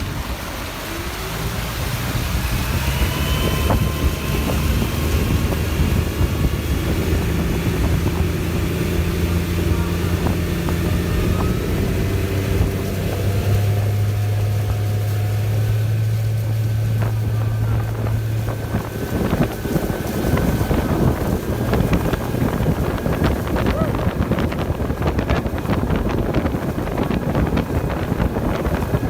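Electric outboard motor driven by a Tesla three-phase motor, running a boat under way: a whine that slowly rises in pitch over a low hum, with water and wind noise on the microphone growing rougher near the end.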